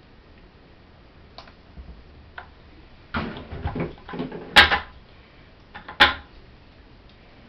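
A plastic pitcher and spatula clattering and knocking on a tabletop as they are set down, a run of knocks with the loudest near the end of it, then one sharp click about six seconds in.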